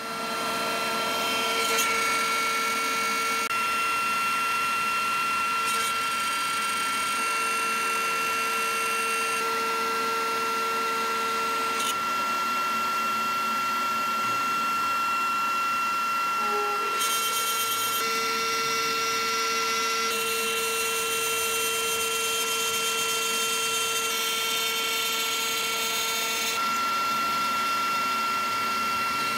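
CNC router spindle milling a pocket in a PVC sheet with a small end mill, running with a steady high whine over continuous cutting noise. A lower tone drops out for several seconds midway and then returns.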